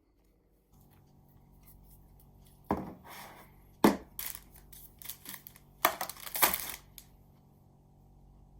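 A packet being torn open and handled, in a few short tearing, crinkling bursts. The sharpest comes about four seconds in and a longer one around six seconds.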